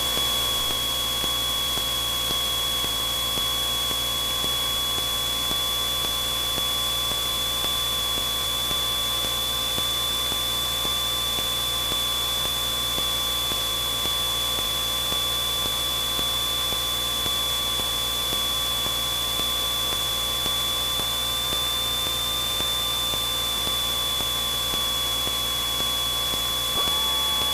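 Steady in-cabin drone of a Cessna 172N's four-cylinder Lycoming engine and propeller in flight, with a steady high whine over it that wavers slightly in pitch about three-quarters of the way through.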